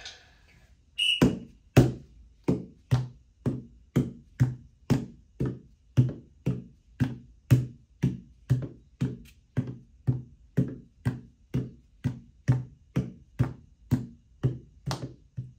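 A hand repeatedly striking reaction-test targets in a timed hit drill, an even run of knocks at about two hits a second. A short high beep about a second in starts the run.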